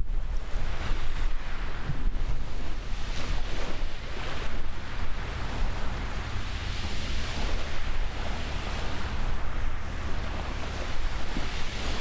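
Wind buffeting the microphone with a heavy, uneven low rumble, over a rushing hiss of wind and water that swells and fades.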